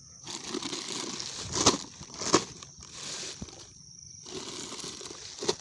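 Packaging rustling and crinkling as a new cylinder liner sleeve is unpacked, with two sharper crackles between one and a half and two and a half seconds in.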